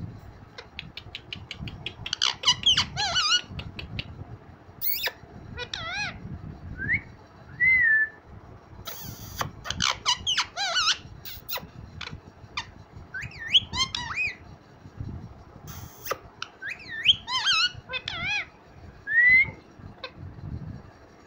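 Young green parakeets giving short, squeaky, wavering whistled calls again and again, with a quick run of clicks about two seconds in.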